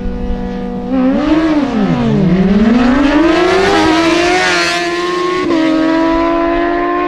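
Racing motorcycle engines revving and pulling away in a drag-race run. The engine pitch swings up and down, then climbs in a long rising run with drops at the gear changes.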